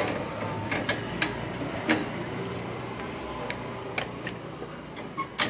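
Scattered metallic clicks and taps of hand tools on the parts of a wheel hub's brake assembly as clips and fittings are worked loose: about half a dozen sharp ticks at uneven intervals over a low steady hum.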